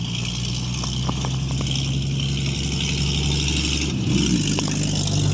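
A motor vehicle's engine running with a steady low hum under a constant hiss. The engine note shifts and rises briefly about four seconds in.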